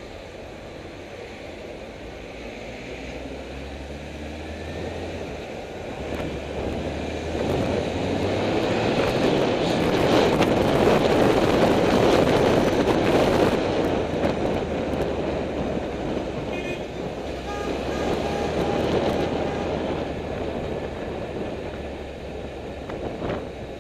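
Honda CBF600 inline-four motorcycle running under way, with a rush of wind that builds as it picks up speed, is loudest about halfway through, then eases off.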